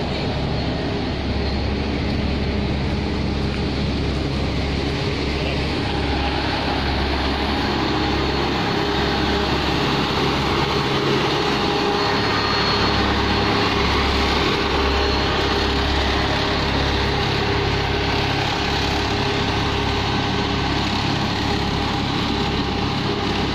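Diesel engine of an L&T 990 HF tandem-drum road roller running steadily as it works the fresh asphalt, a continuous low drone that fills in a little more from about six seconds in.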